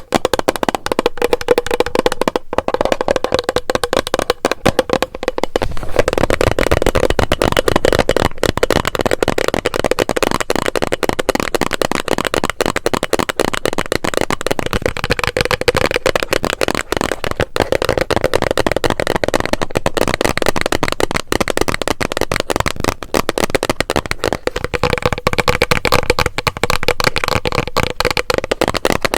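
Rapid, continuous tapping on a hollow plastic bottle, with a ringing note around the middle range; the tapping is lighter for the first few seconds, then fuller and denser.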